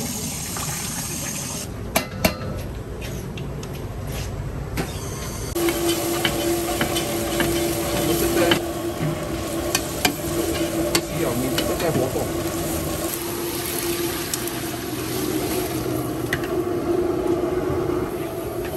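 Metal spatula stirring and scraping pandan leaves and aromatics frying in oil in a large steel pot, with sizzling and frequent sharp knocks of the spatula against the pot. A steady hum starts about five seconds in.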